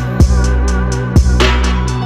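Electronic background music with a deep, sustained bass and a slow, punchy drum beat.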